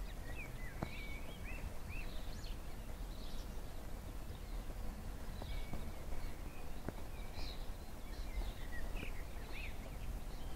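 Small birds chirping and calling again and again over a low, steady rumble from a distant class 43 HST diesel train running along the line.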